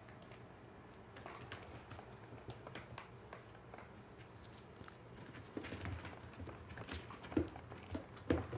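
Puppies' paws pattering and scratching on puppy pads and floor, a scatter of small clicks and rustles, with a few louder thumps in the last three seconds.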